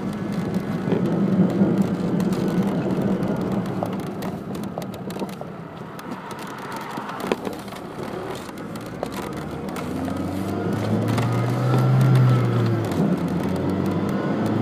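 A 1998 Saturn being driven, heard from inside the cabin: steady engine hum and road noise. About ten seconds in, the engine note rises and gets louder.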